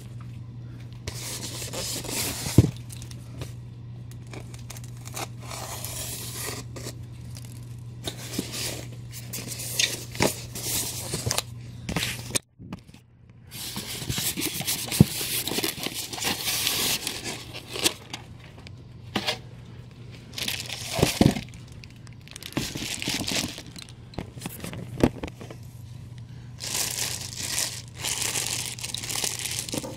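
Packaging being handled: styrofoam packing blocks scraping and rubbing as they are pulled apart, with plastic wrap crinkling and occasional knocks, over a steady low hum.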